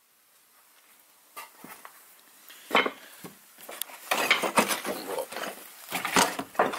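Scattered footsteps and scuffs over loose bricks and straw, getting busier about four seconds in. Near the end come clicks and a clunk as the door handle of an old Volvo 245 is pulled and the door unlatched.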